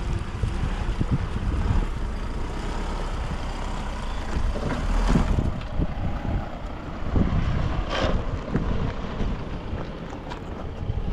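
Isuzu D-Max's 3.0-litre four-cylinder turbo-diesel pickup crawling over a rough off-road course: a low engine and drivetrain rumble with irregular knocks and bumps from the body and suspension, and some wind on the microphone.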